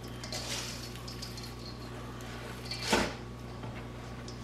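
Hands pressing chicken into crushed cracker crumbs in a stainless steel mixing bowl, with faint crumbly rustles and one louder thump about three seconds in.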